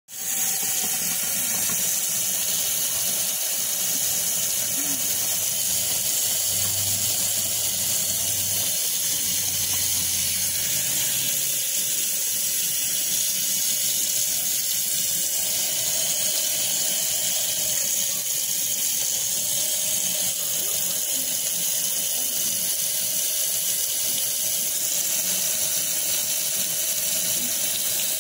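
Tap water running in a steady stream into a stainless steel sink, splashing over a paintbrush that is being rinsed out.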